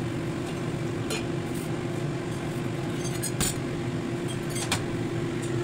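Metal lid being set on a metal soup pot on a gas stove: several sharp metal clinks, the loudest about three and a half and nearly five seconds in, over a steady background hum.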